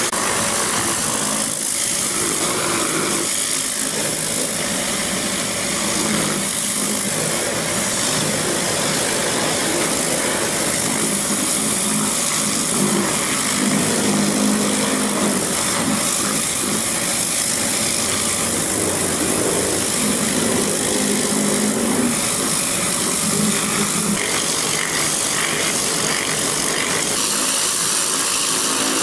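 High-pressure washer with a rotary nozzle blasting caked mud off a tracked machine's steel crawler track: a loud, steady hiss of spray, with an engine running underneath.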